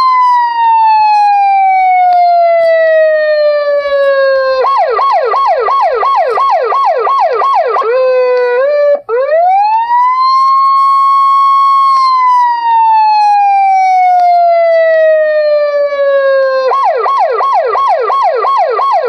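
Electronic police siren ringtone. A long wail falls slowly in pitch, then switches to a rapid yelp of about three warbles a second. It breaks off briefly, sweeps back up, holds, and repeats the slow fall and the yelp.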